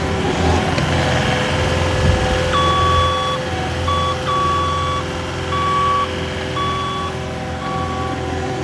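Caterpillar 259D compact track loader's diesel engine running steadily, with its backup alarm starting about two and a half seconds in and beeping roughly once a second as the machine reverses.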